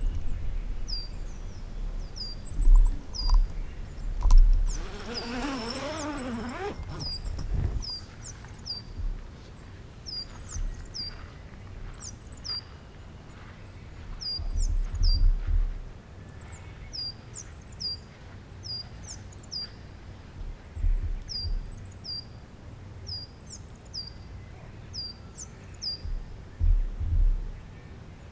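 A small songbird repeating a short, high, two-note downslurred call about every second or so. There is a brief wavering, rising-and-falling sound around five to seven seconds in, and low rumbles on the microphone now and then.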